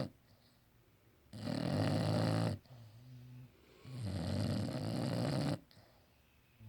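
English bulldog snoring in its sleep: two long, loud snores about two and a half seconds apart, with a softer breath between them and a short snore starting near the end.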